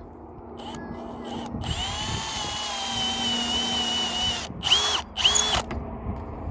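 Power drill driving screws into plywood: a few brief trigger pulls, then a steady motor whine for about three seconds, then two short bursts near the end.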